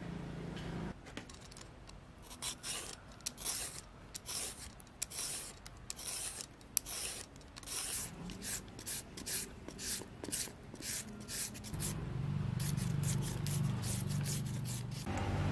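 Knife cutting a carrot into thin julienne strips against a wooden cutting board: a run of short strokes, about two a second, coming faster after the middle. A low steady hum comes in near the end.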